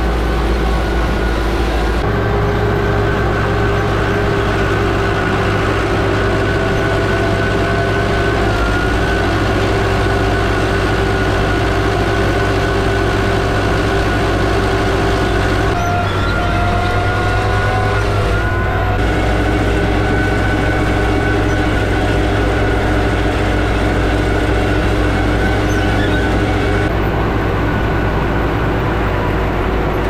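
Tractor engine running steadily under load while driving a mower, with a steady machine whine over the engine drone, heard from inside the cab. The pitch shifts slightly at a few points.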